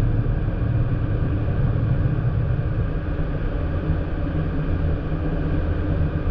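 Light aircraft's piston engine and propeller running steadily at a constant setting, a loud, even drone.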